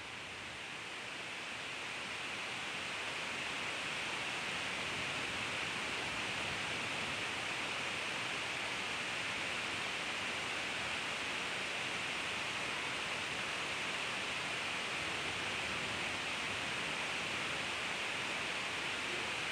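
Steady hiss with no other sounds, growing louder over the first few seconds and then holding level.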